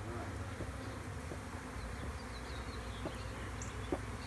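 Swarm of honeybees flying around an opened hive, a steady hum of many wings, with a few light taps.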